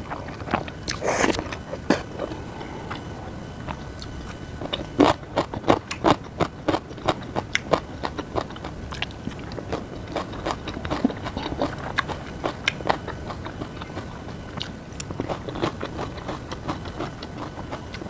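A person eating close to the microphone: steady chewing with many irregular crisp clicks and crackles, the bites and chews of food.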